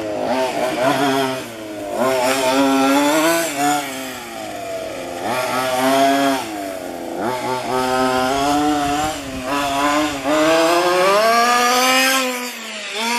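Two-stroke petrol engine of a 1:5 scale FG radio-controlled car, revving up and easing off again and again, its pitch rising and falling with the throttle. The sound cuts off suddenly at the very end.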